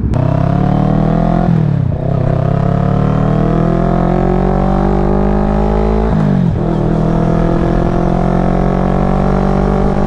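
CFMoto 400NK's twin-cylinder engine, through its aftermarket exhaust, pulling under acceleration with its pitch climbing steadily. It is upshifted twice, about 2 seconds in and about 6 seconds in, with a sharp drop in pitch each time.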